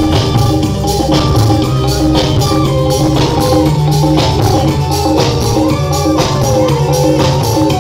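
Live brondut dance music from a band of drums and keyboards, playing a steady beat with a repeating melody.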